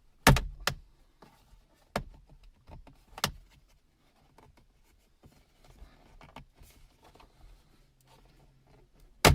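Sharp plastic clicks and knocks of a car's center console trim being pulled against its retaining clips: four snaps in the first few seconds and another near the end, with faint scraping and rustling of the trim between them. The clips are tight on the new car.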